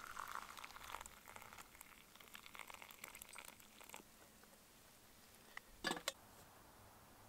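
Faint crinkling and rustling of something being handled for about four seconds, then two sharp clicks close together about six seconds in.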